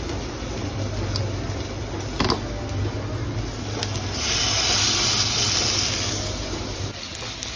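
Marinated chicken pieces sizzling in ghee in a hot non-stick kadai over a steady low hum, the sizzle swelling about four seconds in as a second piece is laid into the pan. A couple of light knocks come before it.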